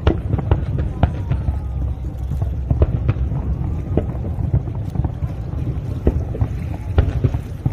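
Fireworks display: many irregular bangs and crackles over a steady low rumble.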